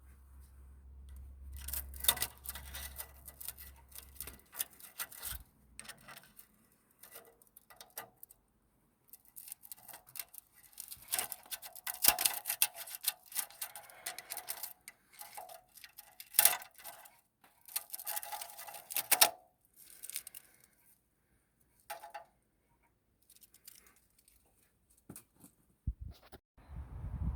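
Clicking and metallic clinking of hand tools and metal parts being worked on, in bursts with pauses and some short ringing clinks. A low rumble starts near the end.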